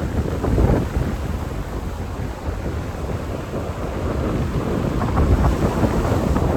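Wind buffeting the microphone over the rush of the sea, a low rumbling noise with louder gusts about half a second in and again about five seconds in.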